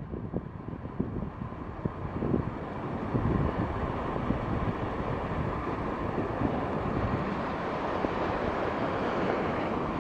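Wind buffeting the microphone in uneven gusts over a steady rush of water.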